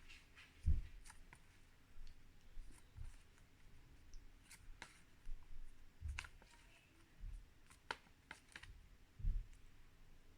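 Faint, scattered clicks and soft low thumps of paper flashcards being handled and flipped through one by one.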